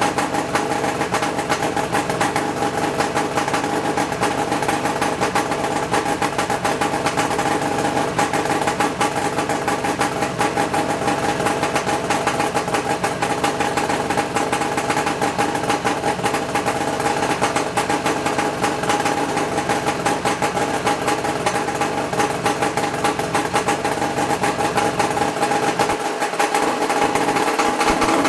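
1975 Suzuki GT550's air-cooled two-stroke three-cylinder engine idling steadily.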